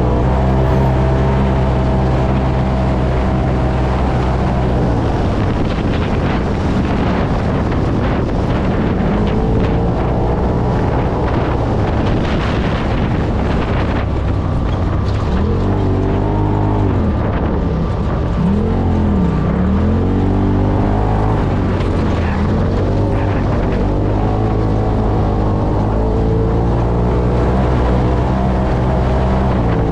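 UTV engine running hard while driving over sand, with wind buffeting the microphone. Around the middle the engine pitch drops and climbs again several times as the throttle is let off and reapplied.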